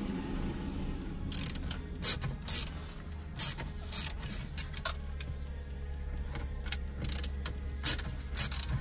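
Small cordless electric screwdriver backing out the Phillips screws that hold a car's head unit in the dash: a low motor whir with sharp metallic clicks and clinks scattered through, about nine in all.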